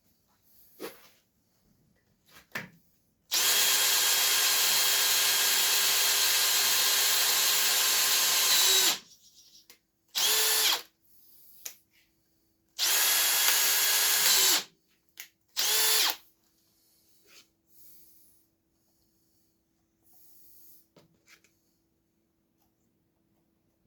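Electric drill with a 6 mm bit boring through a steel bolt, so that the bolt can be taken out with an extractor. One long run of about six seconds is followed by three short bursts.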